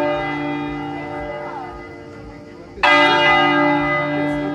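A large church bell tolling: one stroke rings on and fades slowly, and a second stroke is struck about three seconds in and starts to fade in turn.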